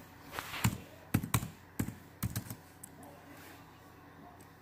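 Typing on a computer keyboard: a handful of uneven key clicks over about three seconds.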